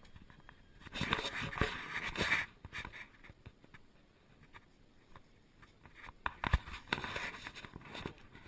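Rustling and scraping handling noise, clothing brushing against the microphone of a worn camera, with a few sharp knocks. It comes in two spells, the first about a second in and the second near the end.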